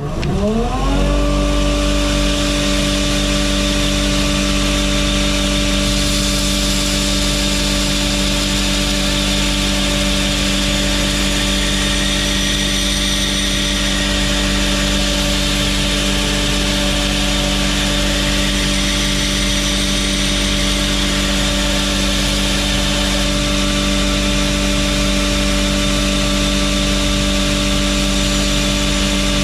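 Belt grinder's electric motor spinning up to speed, its whine rising in pitch over about a second, then running steadily at full speed.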